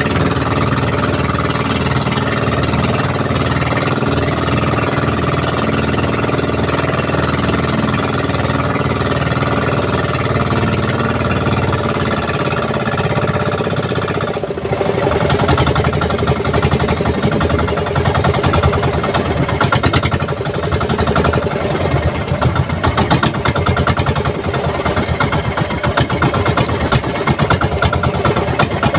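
Small fishing boat's engine running steadily. About halfway through, its sound changes and turns rougher and more pulsing.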